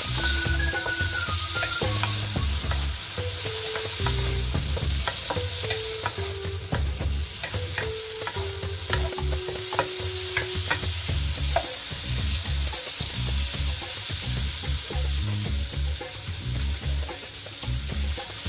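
Onion, tomato and garlic sizzling in hot oil in a wok while a spatula stirs them, scraping and clicking against the pan, with the clicks mostly in the first half. Quiet background music with a bass line and simple melody runs underneath.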